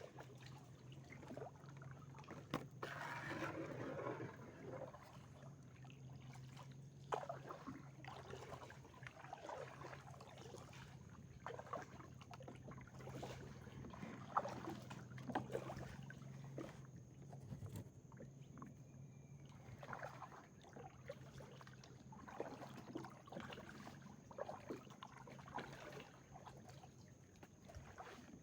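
Kayak paddle dipping into calm water, a soft splash and drip with each stroke every second or two, over a faint steady low hum.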